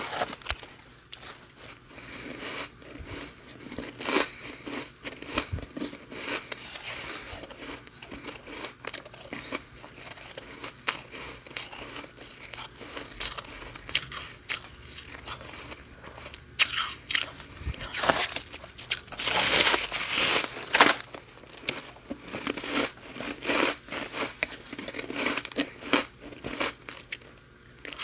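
Close-miked biting and chewing of freezer frost: irregular crisp crunches throughout, with a louder, denser run about two-thirds of the way through.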